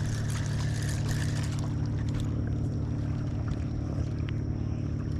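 A boat's motor running with a steady low hum.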